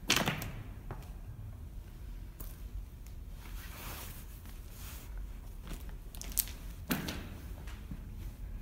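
Footsteps and handling noise in a subway tunnel: scattered scuffs and rustles over a low steady rumble. A sharp scuff just after the start is the loudest, with a smaller one about seven seconds in.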